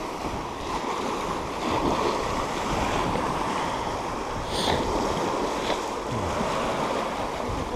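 Small sea waves breaking and washing over shoreline rocks, a steady surging rush, with wind.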